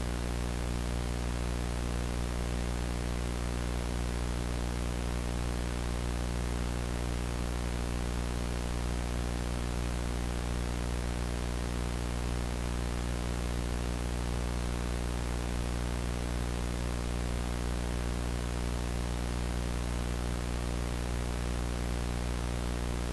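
Steady electrical hum with a stack of overtones under an even hiss of static, unchanging throughout: dead air with no programme sound.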